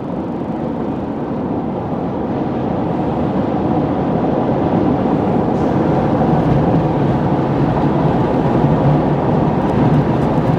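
Steady road and engine noise of a moving vehicle, growing slightly louder.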